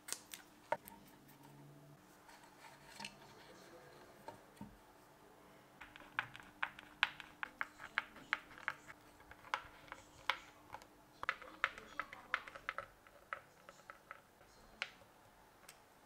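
A series of light, irregular clicks and taps, a few scattered at first, then coming quickly, several a second, for much of the second half.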